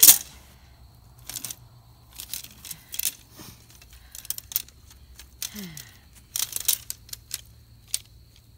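Fiberglass greenhouse poles clicking and clacking against each other as they are handled and sorted, in scattered groups of light knocks.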